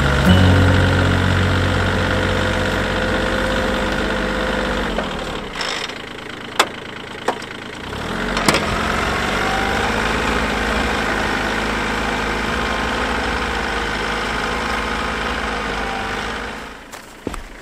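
Kioti CK22 compact tractor's diesel engine working under load as it drags a heavy log through deep snow. Its pitch sags about five seconds in and it runs quieter for a few seconds with a few sharp clicks, then picks back up and fades near the end as the tractor moves off.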